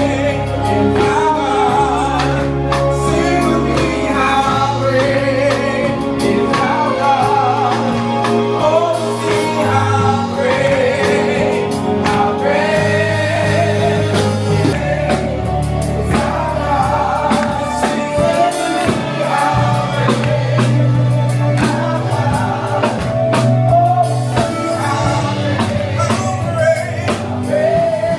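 Music with singing over a bass line and drums, in a gospel style.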